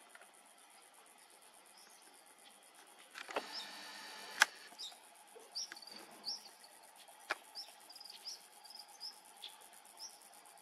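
Crickets trilling steadily and high, with a bird giving short, repeated chirps from about five seconds in. About three seconds in a brief buzz ends in a sharp click, the loudest sound, and another click comes near seven seconds.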